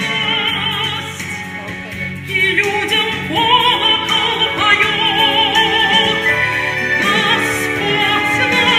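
A woman singing held notes in a classical, operatic style with a wide vibrato, over instrumental accompaniment. The music drops softer about a second in and swells back about two seconds later.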